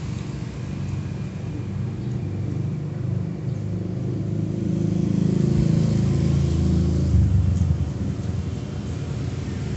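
A low rumble that grows louder in the middle and then eases off.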